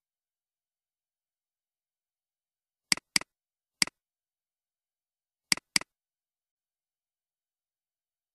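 Computer mouse clicks against dead silence: a quick pair about three seconds in, a single click just before four seconds, and another quick pair about five and a half seconds in.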